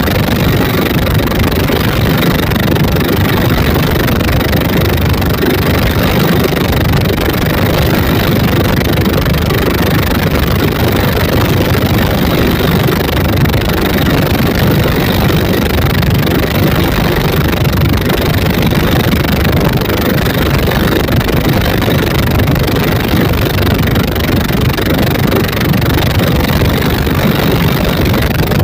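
Twin 24 HP dompeng single-cylinder diesel engines of a wooden boat running steadily at speed, a loud even drone with no change in pitch.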